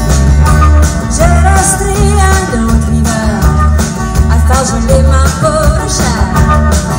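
Live rock band playing, with a heavy pulsing bass beat; a wavering lead melody line comes in about a second in.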